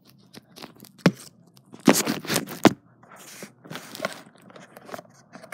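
Handling noise close to the microphone: a run of scrapes, knocks and crackles from something stiff being handled, with a sharp knock about a second in and the loudest cluster about two seconds in.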